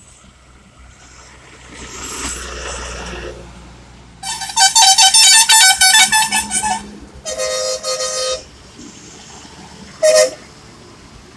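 Loaded lorry passing on a highway, its engine and tyres building about two seconds in. Then truck horns sound very loudly: a multi-tone horn in rapid pulses for about two and a half seconds, a steadier, lower horn blast of about a second, and a short toot near the end.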